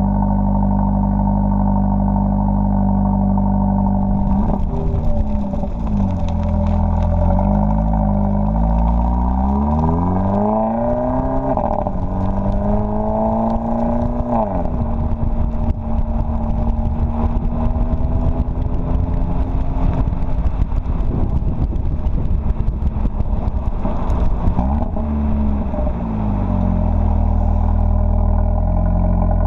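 2015 Mercedes CLA45 AMG's turbocharged 2.0-litre four-cylinder engine and exhaust: it idles steadily, then from about four seconds in the revs rise and fall several times, with one long climb that drops off about halfway. Through the middle stretch the exhaust pops and crackles in a dense run, before the engine settles back to a steady idle near the end.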